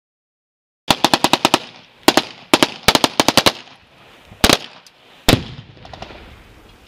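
Silence for about a second, then automatic rifle fire in a firefight: a rapid burst of about eight shots, a few shorter bursts, and single shots near the end, the last one echoing.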